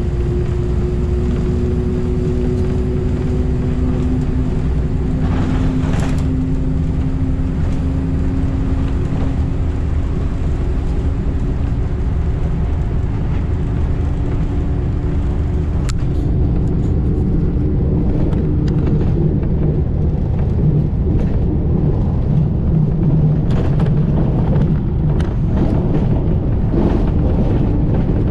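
Interior of a moving city bus: a steady low rumble of engine and tyres, with a faint whine that slowly drifts in pitch as the speed changes. Short rattles and knocks come through now and then, more often near the end.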